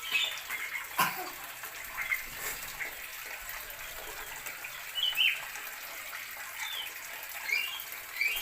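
Birds calling in short, high chirps scattered over a steady rushing hiss, with one sharp click about a second in.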